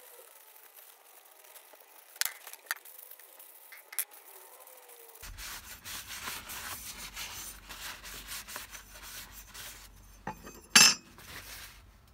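A paper towel rubbing and wiping the metal housing and rim of an old car horn, with a few light clicks of metal in the first half. The rubbing gets denser about halfway through, and a sharp metal clink comes near the end, the loudest sound.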